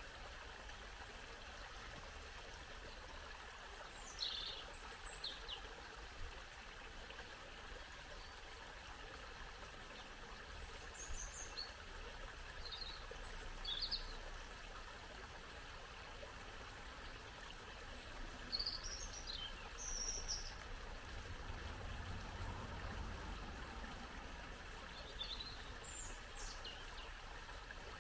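Small brook babbling steadily over stones, with songbirds giving short high chirps and phrases every few seconds.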